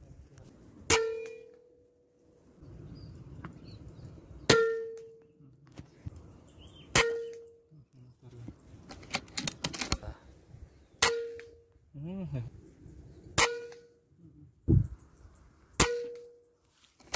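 Six pre-charged pneumatic (PCP) air rifle shots a few seconds apart, each a sharp crack followed by a short metallic ring of the same pitch.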